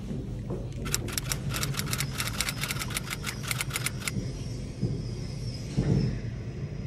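Elevator ride: a steady low hum, with a run of rapid, even clicks, about six a second, starting about a second in and lasting some three seconds, and a soft thump near the end.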